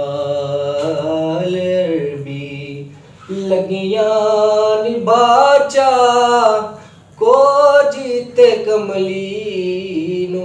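A man singing a kalam solo with no accompaniment: long held notes that bend and waver, broken by short breaths about 3 and 7 seconds in.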